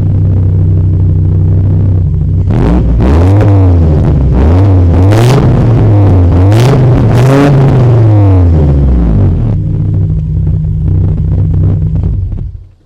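Audi five-cylinder engine with a straight-pipe exhaust idling, then revved several times in quick blips that rise and fall in pitch, settling back to idle. The sound cuts off abruptly near the end.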